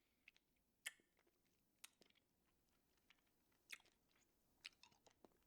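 Faint mouth sounds of someone sucking on a cough drop: a handful of soft, short clicks about a second apart against near silence.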